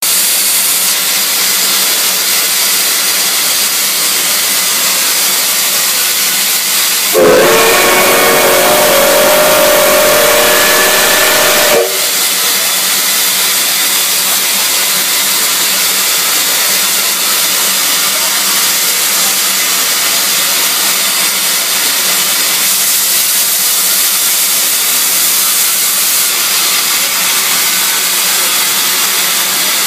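A JNR Class C11 tank steam locomotive hisses steam steadily. About seven seconds in, its steam whistle blows once, a chord of several tones held for about four and a half seconds and cutting off sharply, before the hiss carries on alone.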